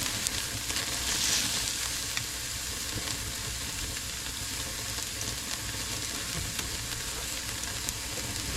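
Ribeye steaks sizzling on the hot grate of a charcoal grill as they sear after being flipped, a steady hiss that swells briefly about a second in.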